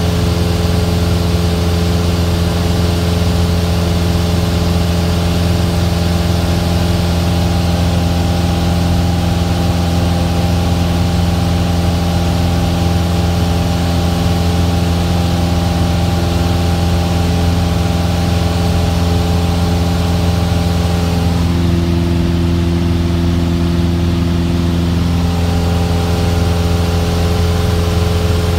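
Cessna's piston engine and propeller droning steadily in cruise flight, heard from inside the cabin, with a brief shift in its tone about three-quarters of the way through.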